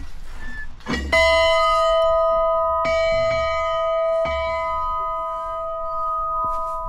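A small metal bell hanging in a stone arch, rung by tugging its rope. It is struck about a second in and twice more, and each strike rings on in a clear, steady tone.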